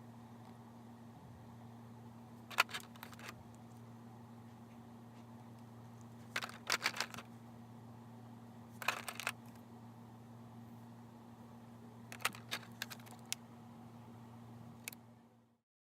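Small hard plastic clicks and taps come in short clusters a few seconds apart, over a steady low electrical hum. This is typical of the plastic parts of a boxed Nendoroid figure being handled and snapped together. The sound cuts off abruptly near the end.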